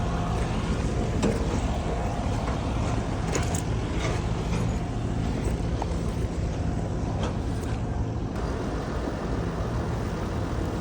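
Caterpillar bulldozer's diesel engine running steadily while working, with a few faint short knocks scattered through.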